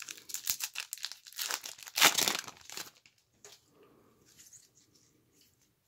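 A Topps XFL trading card pack being torn open, its wrapper crinkling, loudest about two seconds in. Fainter rustling follows.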